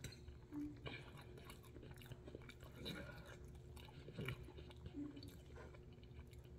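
Faint, close-up chewing of a mouthful of vegetable noodles, with soft wet mouth sounds and small clicks.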